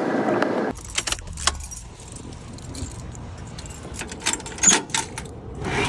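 Keys jangling and clinking in a scattered run of light metallic clicks. A brief rush of noise comes first.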